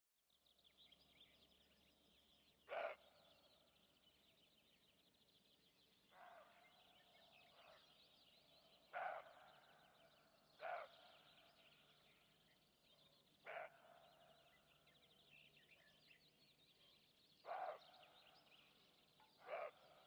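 Faint natural ambience of a steady high chirring, with a bird giving a short call six times at uneven intervals.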